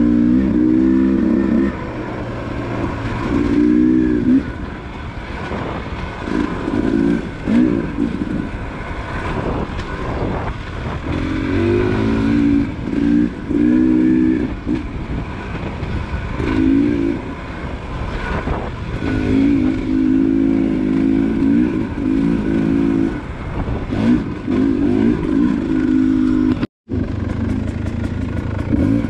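Enduro dirt bike engine working hard on the trail, the throttle opened and closed in repeated surges so the pitch climbs and falls every second or two. The sound drops out for a moment near the end.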